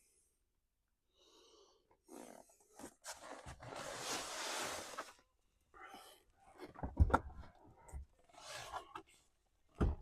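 Hands working on car interior parts: rustling and scraping, with a long scrape about three to five seconds in and a few sharp knocks, the loudest about seven seconds in.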